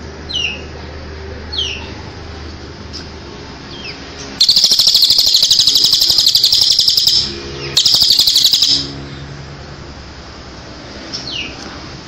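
Recorded song of small songbirds (cililin and ciblek) used as a masteran track: short chirps sliding downward about once a second, then about four seconds in a loud, very fast trill that runs about three seconds, breaks off briefly and resumes for about a second.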